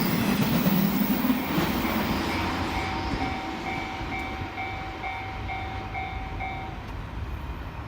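Electric commuter train running away past a level crossing, its rumble and rail noise fading over the first few seconds. The crossing's electronic warning bell rings in an even two-note pulse, about two strikes a second, then stops about seven seconds in as the crossing clears.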